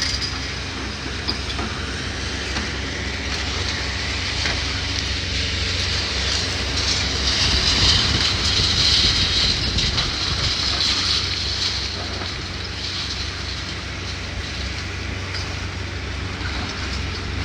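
Demolition excavators working on a brick building: a steady diesel rumble with irregular clattering of falling debris, growing louder and hissier for a few seconds in the middle.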